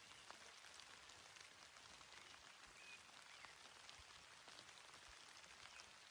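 Quiet, gentle rain falling on a grassy mountain meadow: a faint, steady patter of many small drops, with a few short, high chirps now and then.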